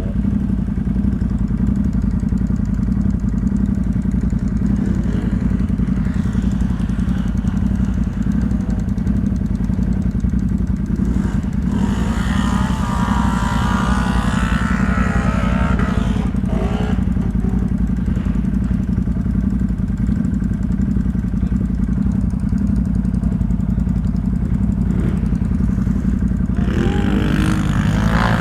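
ATV engine running steadily, heard close up. A higher, wavering sound rises over it for a few seconds midway through.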